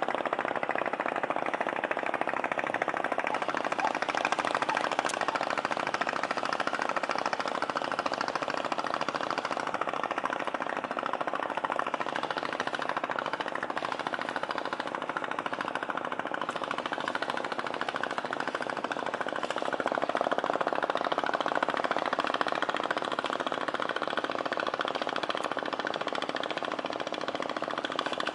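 A nearby engine running steadily with a fast, rattling chug, rising a little in level about two thirds of the way through.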